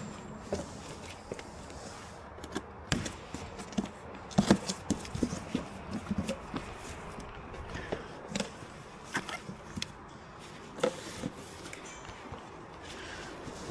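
A cardboard shipping box being cut open with a knife and its packaging handled: irregular taps, knocks and short scrapes.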